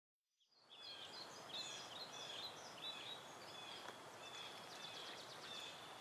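Birds chirping over a faint outdoor background hiss that fades in about half a second in, with short high chirps repeating a couple of times a second.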